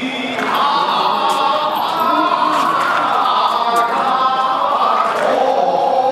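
A group of voices chanting together in long held notes that shift in pitch every second or so.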